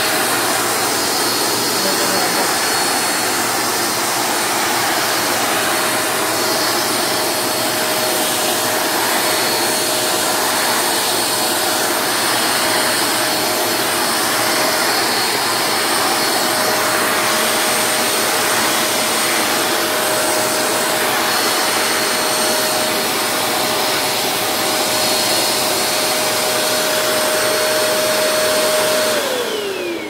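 Canister vacuum cleaner running steadily, a loud rush of air over a constant motor whine, as its floor nozzle works over a tile floor. Near the end it is switched off, and the whine falls steeply as the motor spins down.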